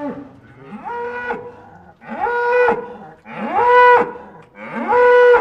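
Cattle mooing: four short calls about a second apart, each on the same high pitch, held briefly and dropping away at the end.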